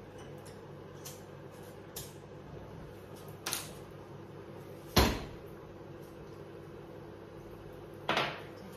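Kitchen knocks over a steady low hum: a few light taps, then a loud metal clunk about five seconds in as a steel pot is set down on the gas hob, and a short burst just after eight seconds as the gas burner is lit.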